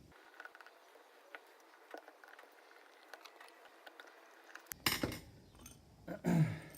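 Screwdriver working the float bowl screws out of a Keihin 627B carburetor: small metallic ticks and clicks of the screws and tool, then louder clattering of small metal parts about five seconds in and again near the end.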